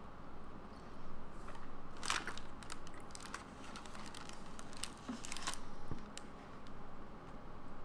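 A person chewing a bite of soft chocolate chip cookie: scattered wet mouth clicks and crackles, busiest from about two to six seconds in.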